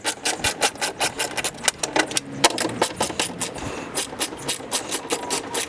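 Ratchet wrench with a 10mm socket clicking rapidly, about six clicks a second, as a bolt is turned, with a short pause about two seconds in.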